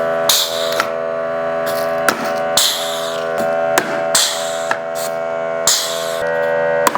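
Background music: steady sustained chords with short percussive hits every second or so.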